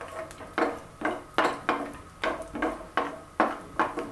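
Wooden spatula stirring cashews in ghee in a nonstick frying pan, knocking and scraping against the pan about two or three times a second, each stroke leaving a brief ring from the pan.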